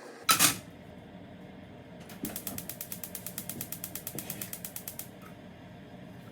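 A short, sharp clatter, then about three seconds of rapid, even mechanical clicking at roughly ten clicks a second, like a ratchet.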